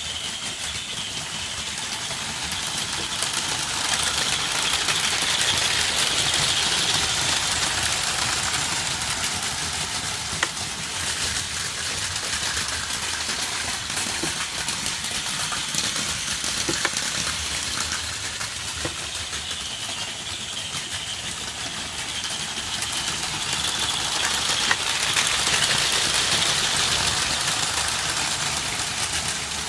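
Battery-powered Plarail Advance toy trains running on plastic track: a steady high whir of small motors and gears with light wheel clatter, growing louder twice as a train passes close.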